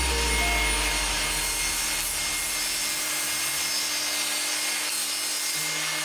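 Table saw running and ripping a thin plywood panel: a steady blade whine with cutting noise. A low rumble at the start fades over the first two seconds.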